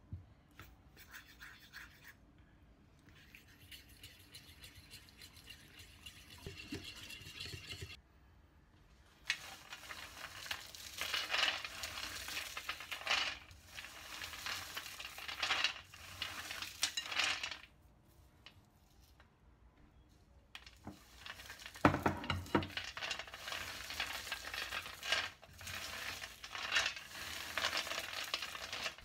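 Peanuts being rubbed between the hands on a metal baking tray to strip their red skins: a dense rattle and scrape of kernels clattering against the metal, in two long spells with a short pause between, after a quieter stretch of handling at the start.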